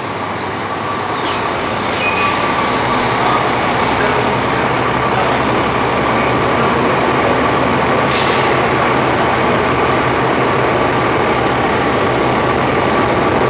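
Train passing on the tracks overhead: a loud, steady rumble that swells over the first couple of seconds, with a held whine throughout and brief high wheel squeals, one near the start and a sharper burst about two-thirds of the way in.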